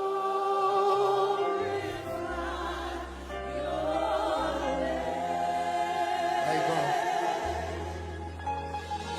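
Slow gospel worship music: a lead voice and backing singers hold long wavering notes over sustained keyboard pads and deep bass notes that shift every couple of seconds.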